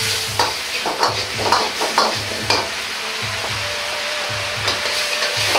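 Metal ladle stirring and scraping in a wok of sizzling mapo sauce as water-dissolved potato starch is worked in to thicken it, a stroke about every half second for the first half and again near the end.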